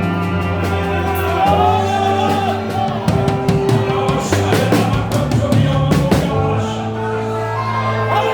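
Live band playing worship music: electric bass holding long low notes under a drum kit, with singing over the top.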